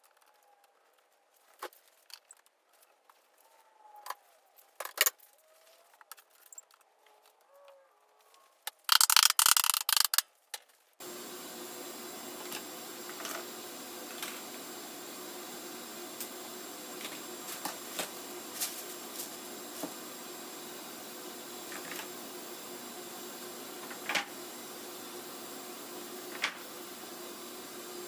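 Woodworking shop sounds: scattered knocks and clicks of wood pieces being handled, then a loud burst of noise lasting about two seconds. About eleven seconds in, a steady hum with occasional clicks takes over.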